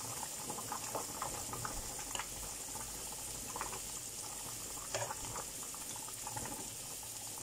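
Steady sizzling and bubbling from diced bell pepper frying in oil in a pan and a pot of lentil soup boiling beside it, with a few light knocks of a ladle in the pot.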